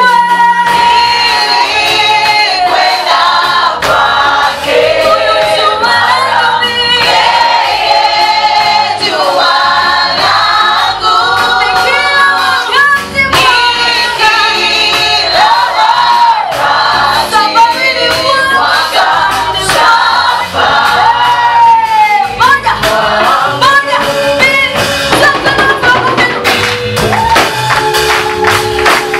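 A mixed choir singing a Swahili gospel hymn, with several voices in harmony.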